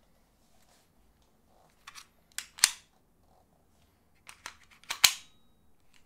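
Airsoft pistol snapping into and out of a CTM AAP01 nylon speed holster: sharp clicks of the holster's retention catching the gun. The clicks come in two clusters, about two seconds in and again about four and a half to five seconds in, with one loud snap in each.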